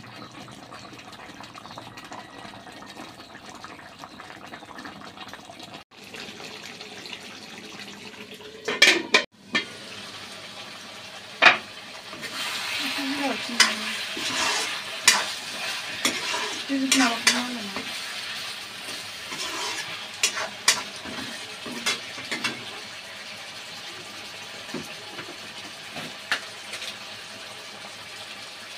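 Pork curry bubbling and sizzling in a metal kadai as its liquid boils down. A steel ladle stirs the pieces through the middle, scraping and clinking against the pan, while the sizzle grows louder.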